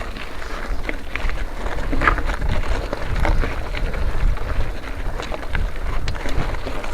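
Wind buffeting the camera microphone as a steady low rumble, with scattered irregular clicks and rattles like a bike going over rough ground.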